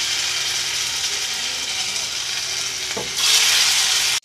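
Balls of sabudana (tapioca) and potato batter deep-frying in hot oil, a steady sizzle. The sizzle swells louder about three seconds in as a second ball goes into the oil.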